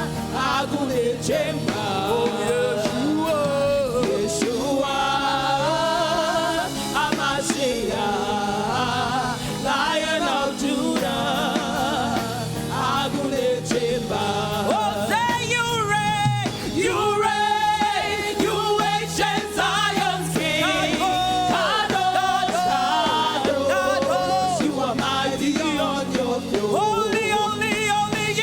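Gospel praise and worship singing with band accompaniment.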